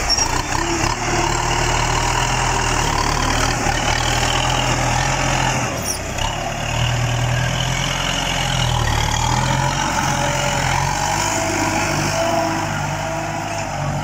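Farm tractor engine running steadily under load as it pulls a disc plough through wet soil, its pitch shifting a little.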